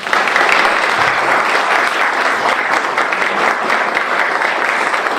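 An audience applauding, many hands clapping steadily, starting suddenly and holding at one level.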